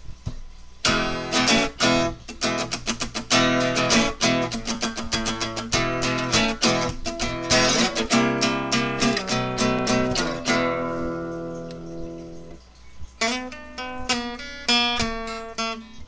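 Intro music on a strummed acoustic guitar, in quick rhythmic strums. About two-thirds of the way through, a chord is left to ring and die away, then the strumming starts again.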